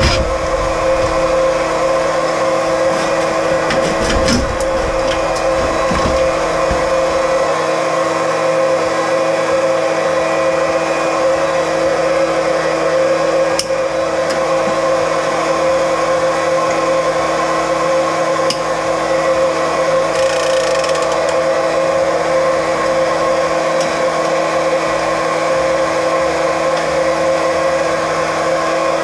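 Small electric pump motor running at one steady pitch, pumping the water out of the old water heater. A few sharp metal knocks come in the first several seconds as fittings are worked loose with a wrench.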